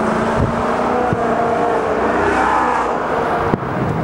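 Steady motor-vehicle engine noise whose pitch slowly drifts, with a few sharp firework bangs over it, the loudest about three and a half seconds in.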